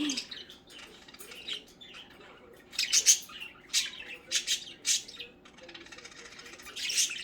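Pet budgerigars chirping and squawking: a string of short, sharp, high calls, busiest around three to five seconds in and again near the end.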